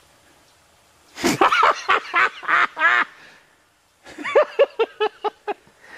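Black bear, just hit by an arrow, bawling out of sight: a loud drawn-out call with a few breaks, then a string of short quick calls about four seconds in.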